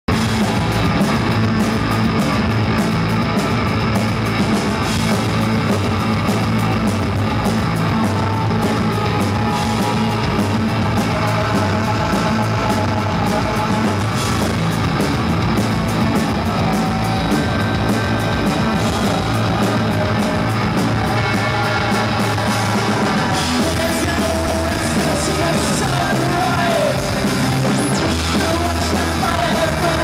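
Loud rock music from a band with electric guitars, with a singing voice.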